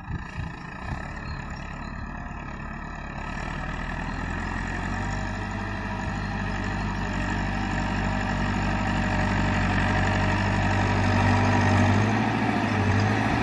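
Massey Ferguson tractor's diesel engine running under load as it pushes a heap of sand with its front blade. The engine grows steadily louder as the tractor comes closer.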